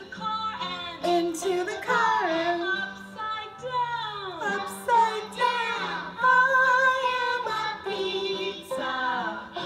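Woman singing a children's song over instrumental accompaniment with a steady bass, including a long note that slides down in pitch about halfway through.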